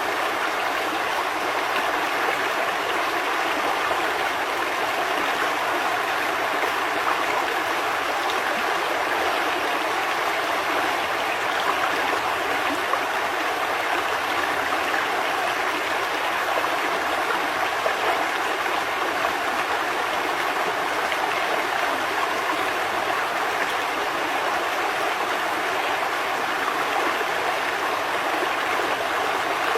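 River water flowing and gurgling steadily over rocks.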